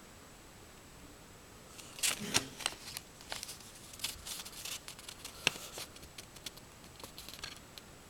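Small jewellery packaging being handled: irregular clicking and crinkling, starting about two seconds in and going on in quick, uneven bursts, with one sharper click about midway through.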